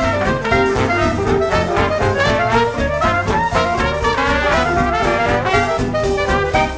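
Background music: upbeat jazz led by brass instruments over a steady beat.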